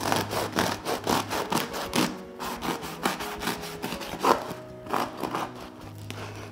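A serrated bread knife sawing through the crisp crust of a freshly baked potato loaf: quick rasping back-and-forth strokes, several a second, easing off about five and a half seconds in.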